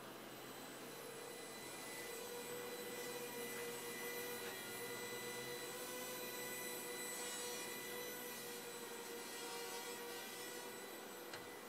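Mini quadcopter's small motors and propellers whining at a steady pitch in flight. The whine grows louder over the first few seconds and fades a little near the end.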